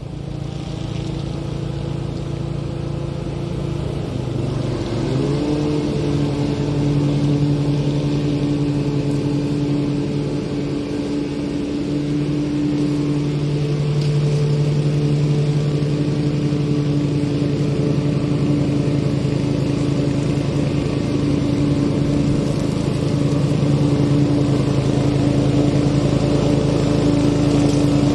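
Toro TimeMaster 30-inch walk-behind lawn mower running steadily while mowing; its engine pitch rises about five seconds in and then holds.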